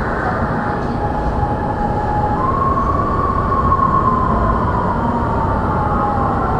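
LRT Ampang line train running between stations, heard from inside the carriage: a steady rumble of wheels on rail under a high whine. The whine jumps up in pitch about two seconds in, then slowly sinks.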